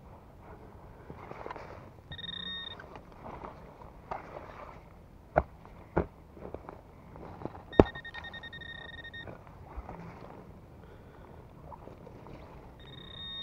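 Metal detector sounding a steady electronic tone three times, once briefly, once for about a second and a half and again near the end: a signal on metal in the dig hole. Between the tones come sharp knocks and scraping of a shovel digging in soil, the loudest knock just as the second tone starts.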